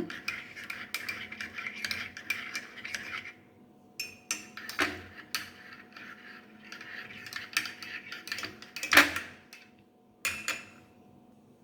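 A spoon stirring hot herbal tea in a cup to dissolve jaggery, clinking repeatedly against the sides in two spells with a short pause, with one louder clink about three-quarters of the way through.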